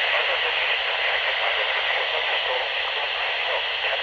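Steady radio static: an even hiss from a radio receiver, with no clear voice coming through.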